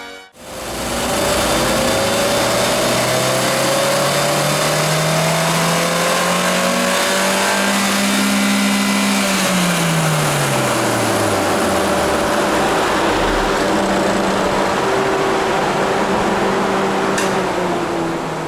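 Suzuki Swift Sport ZC33S's 1.4-litre turbocharged four-cylinder engine making a full-throttle dynamometer pull: its note climbs steadily for about eight seconds, then falls away over a few seconds as the run ends, over a loud, steady rush of noise. This run is on NGK racing spark plugs, which measured about 6 hp down, with the turbo boost not building.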